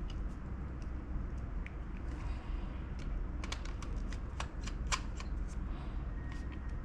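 A small screwdriver and a screw being refitted into a laptop, with light metal and plastic clicks and ticks. A cluster of sharp ticks comes about three to five seconds in, over a low steady hum.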